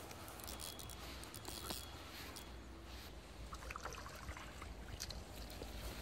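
Faint riverside ambience: a steady low rumble with scattered light rustles and clicks, as of reeds and fishing gear being brushed and handled.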